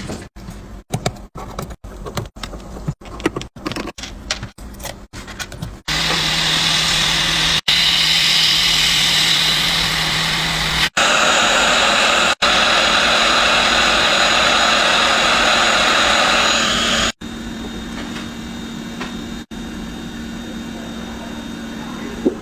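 A loud, steady rushing noise from a machine or blower, starting about six seconds in and cutting off sharply after about eleven seconds. Before it comes a string of short, choppy sounds broken by quick cuts; after it, a quieter steady noise with a low hum.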